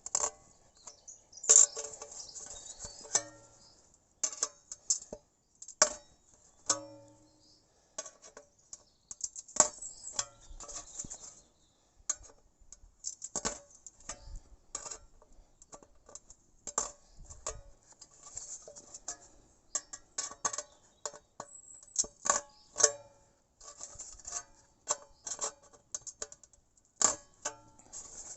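A hook-type can opener punching triangular holes in the side of a large empty catering tin: irregular metallic clicks and clanks, some with the tin ringing briefly, with short pauses between strokes.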